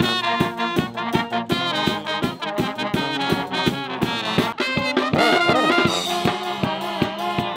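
Street brass band playing an upbeat tune: trumpets, trombones, saxophone and sousaphone over a steady drum beat.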